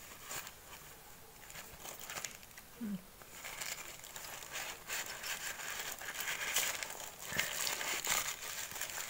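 Hands rustling and crinkling packaging while opening a velvet drawstring pouch and pulling out a purple-wrapped item, with small clicks and handling noise; the rustling grows busier and louder from about three and a half seconds in.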